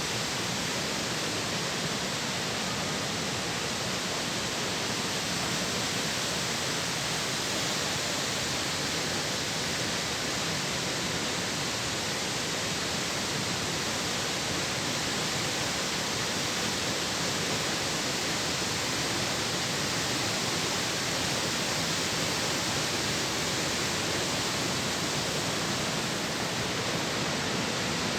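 Water pouring down the Croton Dam spillway in a steady, unbroken rush of white water.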